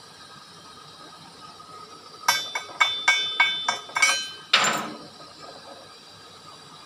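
Chipping hammer striking the steel saddle plate around a fresh stick weld to knock off slag: about eight sharp, ringing metallic blows in quick succession, then one duller, longer knock.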